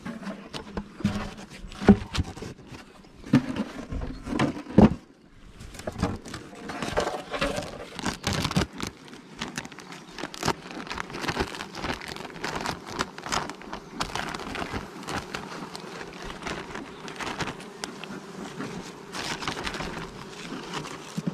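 Honeybees buzzing in a steady hum over an opened hive, with the crinkling of a plastic cover sheet being peeled off the frames. A few loud knocks in the first five seconds as the wooden hive boxes are handled.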